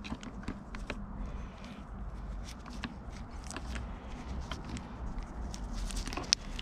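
Scattered small clicks and knocks of parts and wiring being handled during the grip install, with one sharper click a little before the end, over a low steady hum.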